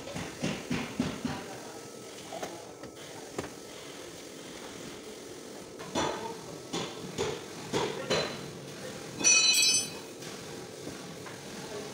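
Scattered knocks and clanks of metal parts and tools being handled in a car's open trunk. About nine seconds in there is a brief ringing metallic clatter, the loudest sound.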